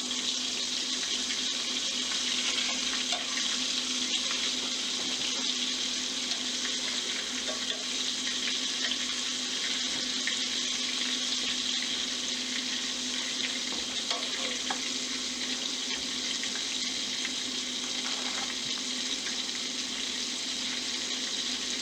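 Squirrel pieces frying in a pan, browning for a crust: a steady sizzle, with a low steady hum beneath it.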